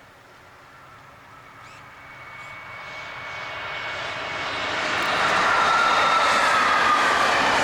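A train approaching, its sound swelling steadily over about five seconds and then running loud, with a high whine that falls slightly in pitch near the end.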